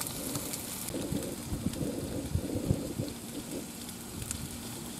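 Sliced beef, onions, green peppers and mushrooms sizzling on a hot flat-top griddle: a steady hiss with scattered crackles, and a few soft knocks in the middle.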